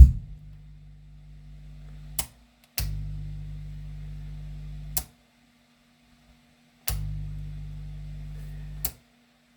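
Audio amplifier switched on with no music playing, giving a low mains buzz. It is switched on and off three times, about two seconds each time, with a sharp click at each switching.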